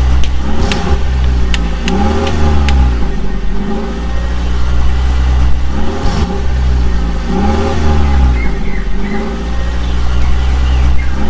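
A heavy vehicle engine runs with a deep rumble, revving up and settling back every couple of seconds in a repeating pattern.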